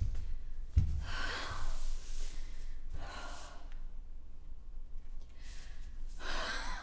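A person breathing out audibly in three long sighs, a few seconds apart.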